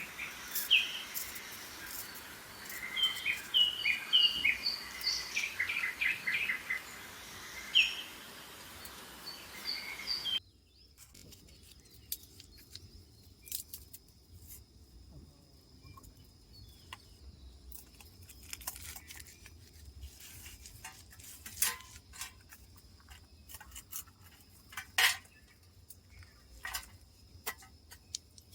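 Small birds calling in forest, with quick series of repeated short chirps. About ten seconds in, the sound cuts abruptly to a much quieter stretch with a faint steady high insect buzz and scattered sharp clicks.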